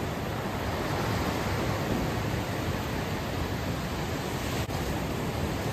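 Ocean surf breaking on a sandy beach: a steady rushing noise.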